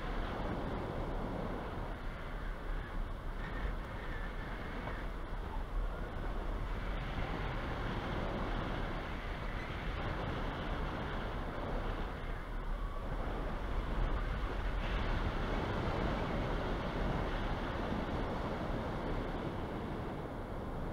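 Wind rushing over the microphone of a camera mounted on a hang glider in flight: a steady airflow rush that swells and eases a little.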